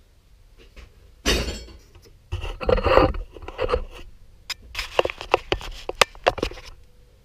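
Close handling noise from the GoPro camera being gripped and repositioned: rubbing and scraping, then a quick run of sharp clicks and knocks.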